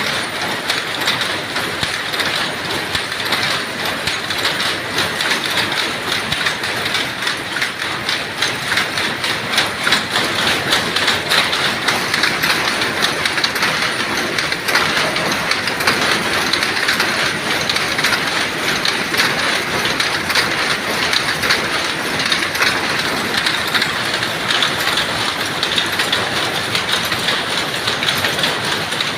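Dobby power loom weaving terry towelling, running with a continuous rapid mechanical clatter.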